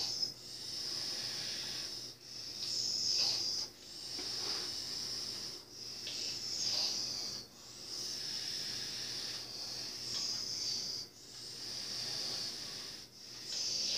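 A high hiss that swells and breaks off briefly every one and a half to two seconds, in a slow repeating rhythm.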